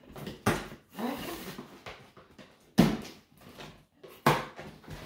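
Cardboard shipping box being cut open with a box cutter and its flaps pulled apart: a run of scrapes, rips and knocks, the loudest about three seconds in and again near the end.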